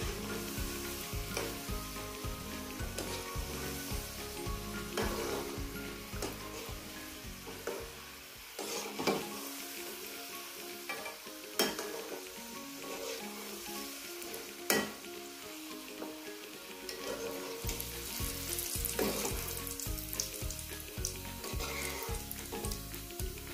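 Hot oil sizzling steadily as mini bhakarwadi deep-fry in a metal kadhai, with a slotted spoon stirring and clicking sharply against the pan three times. Background music with a steady beat plays underneath; its beat drops out for several seconds in the middle.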